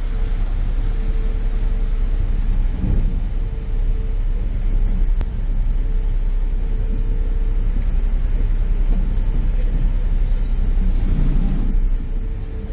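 Harbour ferry's engine running with a low, steady rumble as the ferry berths at a wharf, with a faint hum in it that comes and goes.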